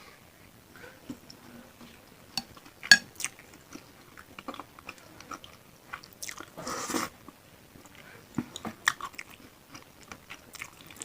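Close-miked chewing and biting of bakso beef meatballs and tetelan beef tendon: irregular wet mouth clicks and crunches, the sharpest about three seconds in, with one longer burst of noise about six and a half seconds in.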